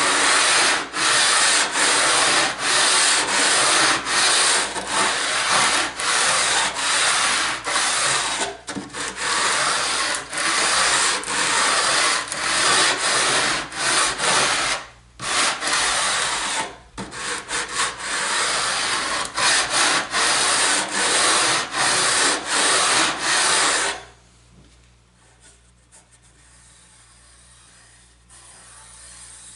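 80-grit sandpaper rubbed back and forth along a sawn aluminum edge in quick, even strokes, deburring it smooth. The strokes pause briefly twice and stop near the end.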